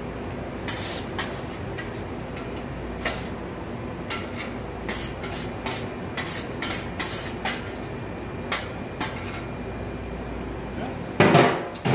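Stainless steel roasting pan tipped over a tall plastic container, with scattered knocks and taps as roasted vegetables slide and are knocked out of it. A louder metal clatter comes near the end, over a steady low background hum.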